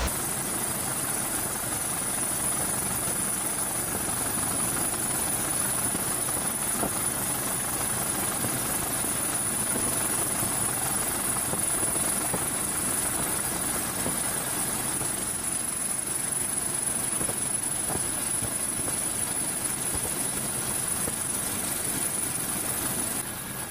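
Helicopter running steadily, with a constant high whine over the rotor and engine noise.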